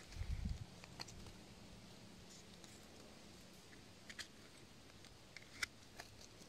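Faint handling rustle, then a few short crisp clicks and scrapes of a pocket knife cutting into the stem base of a freshly picked bolete.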